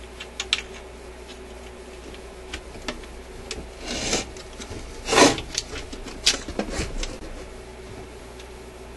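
Handling noise from a record changer mechanism on its wooden mounting board being lifted out of its case and turned over: scattered clicks and knocks, with two rubbing scrapes about four and five seconds in, the second the loudest. A steady low hum runs underneath.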